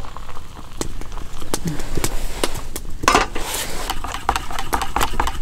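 Irregular clinks and taps of metal camp cookware: a metal kettle set back on the stove and chopsticks tapping a metal cup as a hot drink is stirred. A brief voice about 3 s in.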